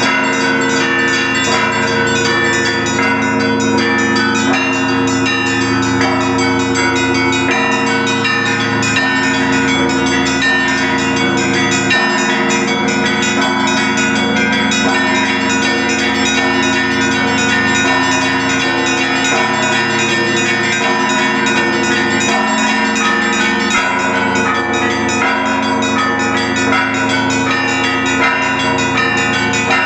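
Russian Orthodox belfry bells ringing together in a continuous, dense peal. Rapid strikes from the smaller bells ring over the long, sustained tones of the larger ones.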